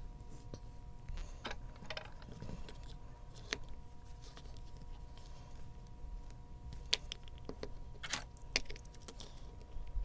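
Scattered light metallic clicks and taps from a removed BEST 7-pin small format interchangeable core being handled by hand, the sharpest about seven and eight seconds in.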